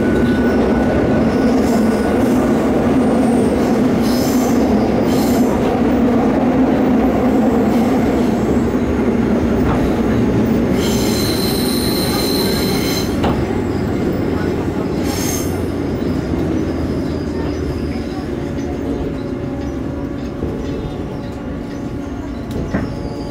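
Seoul Subway Line 2 train heard from inside the car while running: a steady rumble of wheels on rail. High-pitched wheel squeals come briefly about 4 and 15 seconds in, with a longer one of about two seconds around the middle. The running noise grows quieter over the last few seconds.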